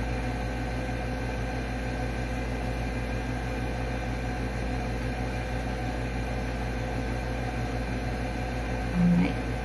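Steady machine hum: an even hiss with several fixed tones running unchanged, like a fan or air conditioner running. A brief, louder low hum comes near the end.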